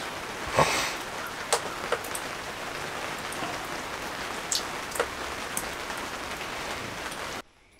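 Rain falling steadily on the fabric roof of a pop-up ice-fishing shelter, heard from inside, with a few sharper drop ticks. It cuts off suddenly near the end.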